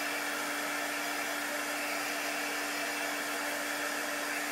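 Handheld craft heat gun running steadily, an even rush of blown air with a steady low hum, drying freshly applied chalk paste on a silkscreened sign.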